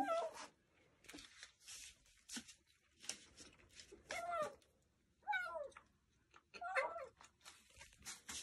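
Hungry young kitten meowing four times in short, falling calls while it eats dry kibble, with faint clicks and rustles between the calls.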